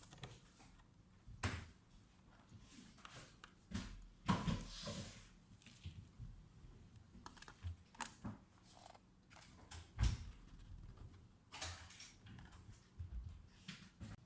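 Hands handling a laptop and tools on a work surface: irregular knocks, clicks and scrapes, the sharpest about 1.5, 4 and 10 seconds in.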